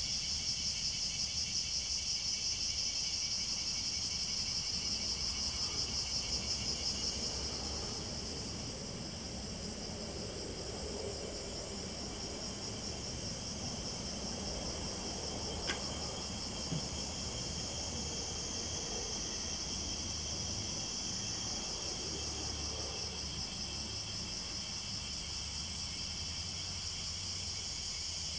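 A chorus of summer cicadas droning steadily at a high pitch, pulsing for the first several seconds and then evening out. Two small knocks come about halfway through.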